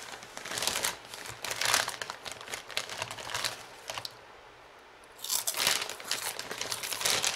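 A large plastic snack bag being handled and crinkled, in rustling bursts, a short pause of about a second, then louder, steadier crinkling.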